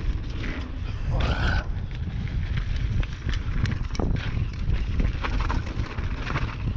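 Mountain bike moving over a dirt trail: a steady low rumble with irregular clicks and rattles, and one short rising squeak about a second in.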